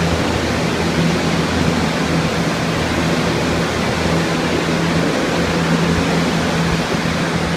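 Many water-damage drying air movers and fans running at once: a loud, steady rushing of air with a constant low motor hum beneath it.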